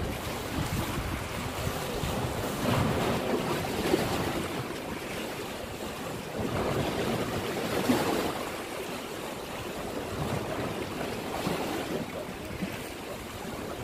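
Sea waves washing against shoreline rocks, swelling every few seconds, with wind buffeting the microphone.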